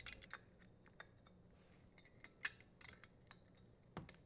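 Near silence with a few faint, scattered clicks and taps of small metal parts being handled: a strain relief nut being threaded and tightened into a dishwasher's sheet-metal terminal box, with the wires being pushed into place. The clearest click comes about two and a half seconds in.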